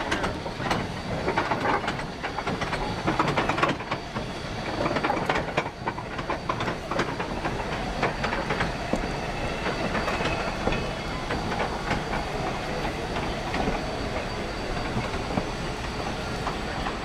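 Steam train rolling slowly past close by, the locomotive's running gear and then a string of cars, wheels clicking and clanking over the rail joints. The clanks are sharpest and densest in the first six seconds or so, then give way to a steadier rumble as the cars go by.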